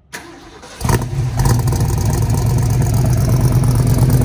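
Old Ford Bronco's V8 being started: a short crank right at the start, the engine catching just under a second in, then settling into a steady idle.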